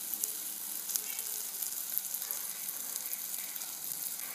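Nsenene grasshoppers sizzling as they fry, a steady hiss with many small crackles.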